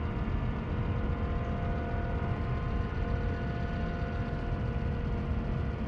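A steady low rumble with a faint, even hum of several steady tones above it, unchanging throughout.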